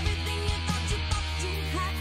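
Rock band playing a song: electric guitar, bass and drums.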